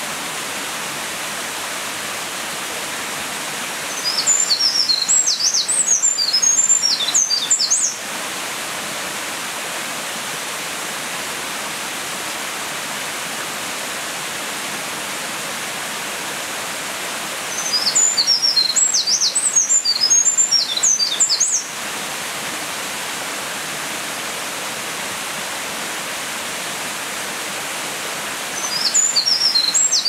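Eurasian wren singing its long, rapid, high-pitched song in three bursts of about four seconds each, separated by long pauses; the third burst starts near the end. A steady rushing hiss runs underneath.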